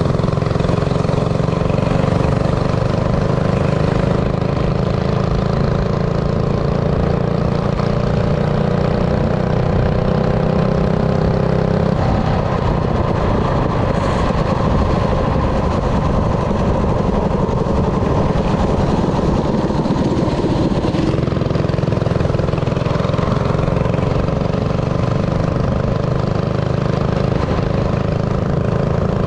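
Minibike's small engine running steadily. Its even tone breaks up into a rougher, unsteady sound for several seconds in the middle, then settles again.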